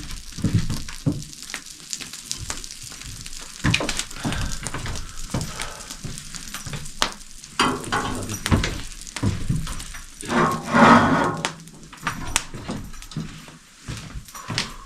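Food sizzling over the embers of a wood fire, with scattered sharp crackles and knocks and a louder stretch about ten seconds in.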